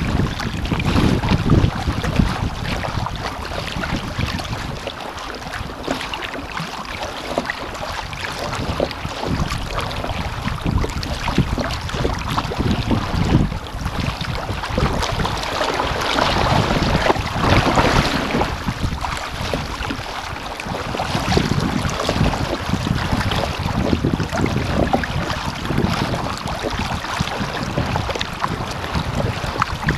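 Wind buffeting the microphone over choppy water slapping and splashing against an Epic V8 surfski's hull as it is paddled through wind-driven waves, with a louder rush of splashing a little past the middle.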